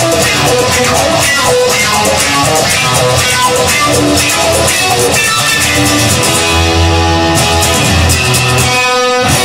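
Instrumental music: a guitar-led track with bass, without vocals.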